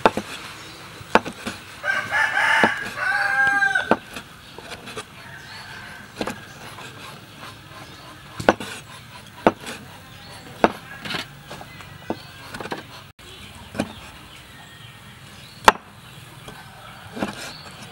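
Cleaver chopping shellfish on a wooden cutting board: irregular single knocks, a few seconds apart. About two seconds in, a rooster crows for about two seconds, louder than the chopping.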